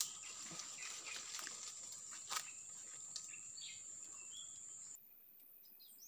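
Forest ambience: a steady high insect drone with scattered short bird chirps and a sharp click a little over two seconds in. The drone cuts off about five seconds in, leaving faint bird calls.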